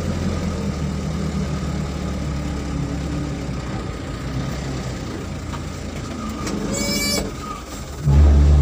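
Vehicle engine running with road noise as it drives along a rough dirt track, heard from inside the cab. A brief high squeal comes a little before the seventh second, and the engine grows louder about eight seconds in.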